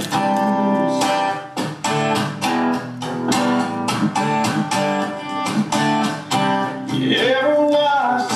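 Background music: a strummed guitar with a steady beat.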